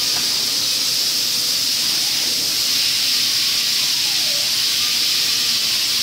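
Steady, loud hiss that runs without a break.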